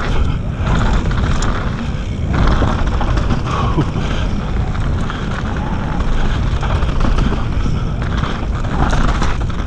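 Wind buffeting an action camera's microphone while a mountain bike rolls fast down a dirt trail, its knobby tyres running over loose dirt and leaves. The noise is loud and steady, heaviest in the low rumble.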